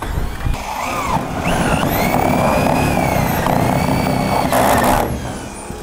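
Power drill driving a screw through corrugated steel roofing: the motor whine rises about a second and a half in, holds steady, and stops near the end.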